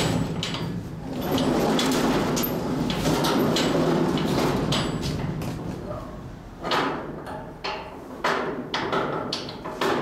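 A large warehouse door closing: a rattling rumble for about six seconds, then a run of sharp knocks and clanks.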